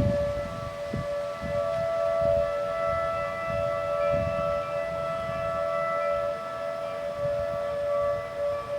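Several outdoor tornado warning sirens sound together during a test, each holding a steady pitch a little apart from the others so that the tones blend and waver. An irregular low rumble runs underneath.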